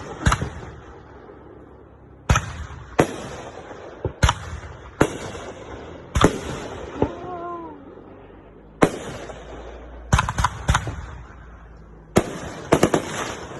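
Fireworks going off: a string of about a dozen sharp bangs, each followed by a rolling echo. Several come in quick clusters, about two-thirds of the way through and again near the end.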